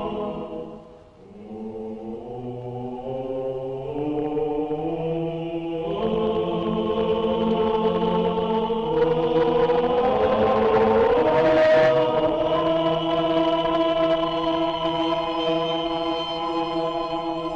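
Film score: a choir singing long held chords. The chords dip briefly about a second in, then build steadily, growing loudest past the middle before easing off.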